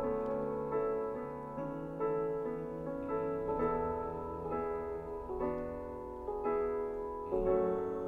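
Background piano music: a gentle run of single notes and chords, changing about every half second to a second.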